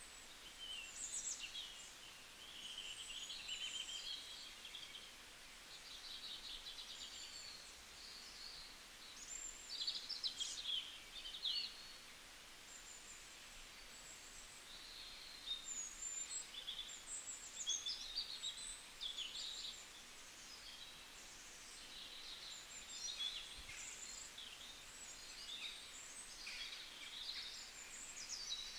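Several small birds chirping and twittering in quick, overlapping bursts, over a faint steady hiss.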